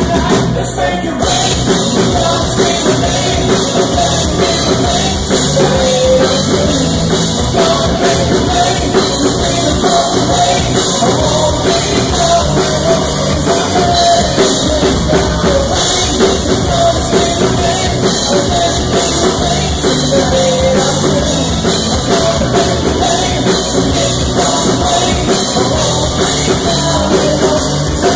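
Rock band playing live at full volume: a male singer over electric guitar and a drum kit.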